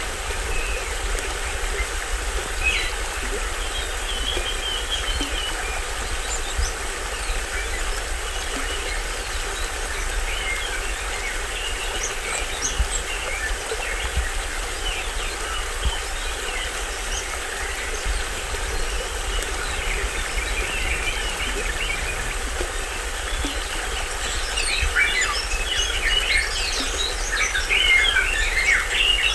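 Small stream waterfall running steadily, with birds chirping over it; the birdsong grows denser and louder near the end.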